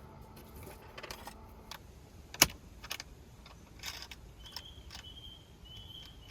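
Small metal objects being handled: a series of light clicks and clinks, the sharpest about two and a half seconds in. Near the end come a few short high-pitched tones.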